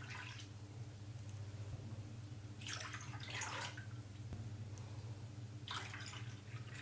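Water poured from a cup into a nonstick pan of sugar, splashing in three short pours, the first ending just after the start and the others about three and six seconds in. A steady low hum runs underneath.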